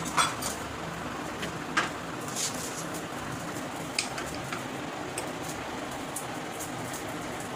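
Uttapams sizzling on a hot tava: a steady, even hiss. A few light clicks of a spoon against a small bowl sound over it as chutney is scooped out.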